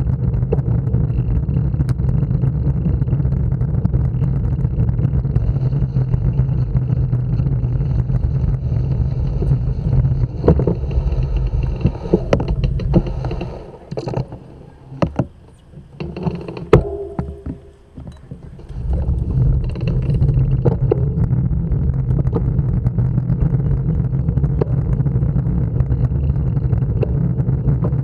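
Steady low rumble of wind and road vibration on a bicycle-mounted action camera while riding slowly. About halfway through it falls away as the bike comes to a stop, with a few sharp clicks and knocks, then returns as riding resumes.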